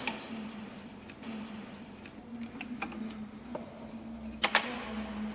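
Scattered light metallic clicks and taps from tools and parts being handled on an industrial bulk-bag sewing machine while its looper clearance is set. The sharpest click comes about four and a half seconds in, over a faint steady low hum.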